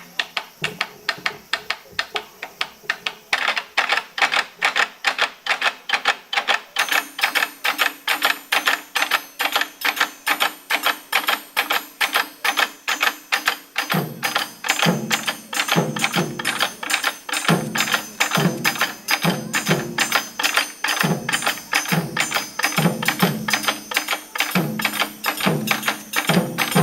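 Japanese taiko drums played by a group in a steady driving rhythm of crisp, evenly spaced strokes, about three a second. Deeper booming drum strokes join about halfway through.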